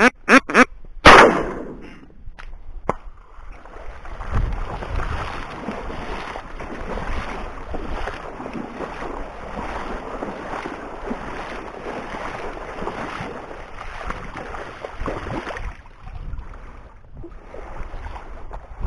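A duck quacks a few times, and about a second in a shotgun fires once, loudly. For most of the rest there is a steady sloshing and swishing of someone wading through shallow water and reeds.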